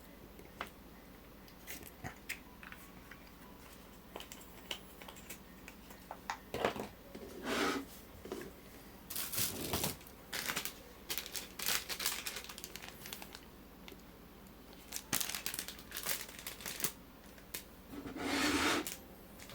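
Crinkling and rustling of plastic packaging being handled and torn, in irregular bursts with scattered small clicks and knocks; the longest, loudest rustle comes near the end.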